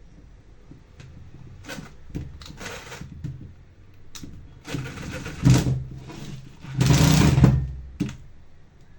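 Black+Decker 7750 angle grinder motor switched on in several short bursts, the longest and loudest about seven seconds in.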